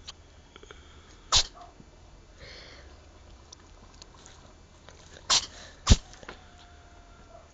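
A cat sneezing three times: once about a second in, then twice more about four seconds later, half a second apart.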